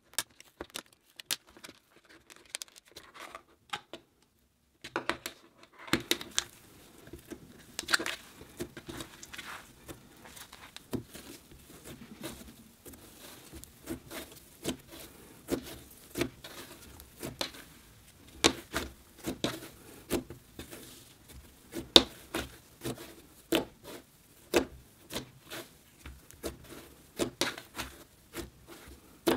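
Slime being kneaded, pressed and pulled apart by hand on a hard surface: a dense run of irregular, sticky crackles and pops. These start after a brief lull a few seconds in. Before the lull, a few separate clicks come as a plastic slime tub is handled.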